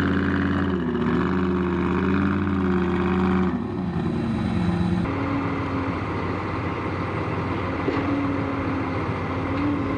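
Off-road race truck engine running under load, its pitch stepping up and down for the first few seconds, then settling to a steadier note over rough road and drivetrain noise from about five seconds in.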